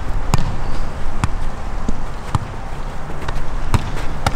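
Soccer ball being kicked back and forth: a series of sharp thuds, roughly one a second, the loudest just after the start and near the end.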